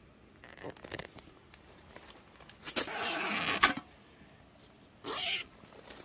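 A zipper on a fabric storage cover being pulled: one long rough pull lasting about a second, about three seconds in, and a shorter pull about five seconds in, with soft handling rustle.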